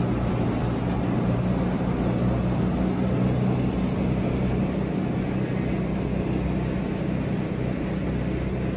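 Tractor-driven bale shredder running steadily, blowing lucerne hay out through its feed spout: an even engine hum with a noisy rush over it.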